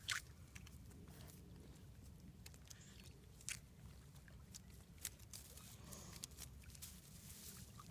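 Faint, scattered scratching and crunching as a puppy paws and digs at the ground.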